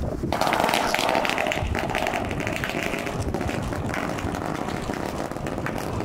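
A string of firecrackers going off in a rapid crackle of pops. It starts suddenly just after the opening and thins out over the following seconds.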